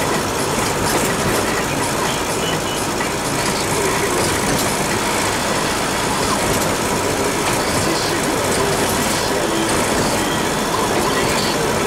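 Steady engine and road noise inside the cab of a Mercedes 208 D diesel van on the move.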